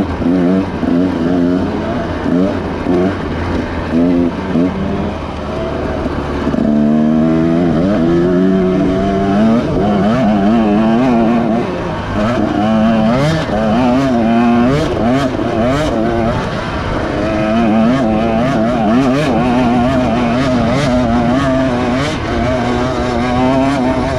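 Several racing engines running at once, revving up and down so their pitch rises and falls continually.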